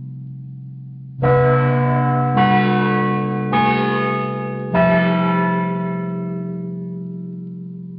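Bell chime: four bell strikes on different notes, a little over a second apart. The last note rings on and slowly fades.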